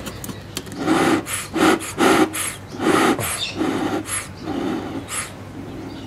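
Bee smoker bellows being pumped by hand: a run of about seven short puffs of air, roughly one every 0.7 seconds, driving smoke out of the smouldering leaf fuel.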